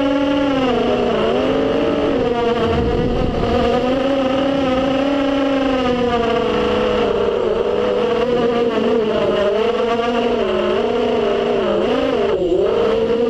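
FPV racing quadcopter's brushless motors and propellers whining, the pitch rising and falling continually with the throttle, with a sharp dip near the end.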